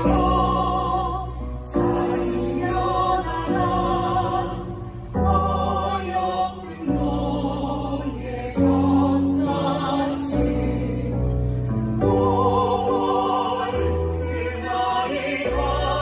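Slow song sung with vibrato over sustained accompaniment chords that change every couple of seconds.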